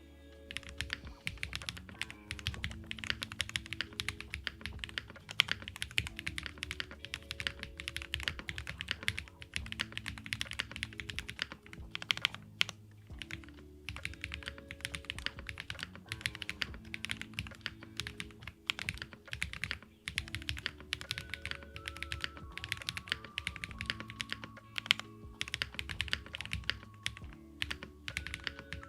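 Continuous fast typing on a custom mechanical keyboard with JWK Graphite Gold switches, GMK Apollo keycaps and an FR4 plate with Poron and silicone foam, the key strikes coming in dense runs with brief pauses about twelve and twenty seconds in. Soft background music plays underneath.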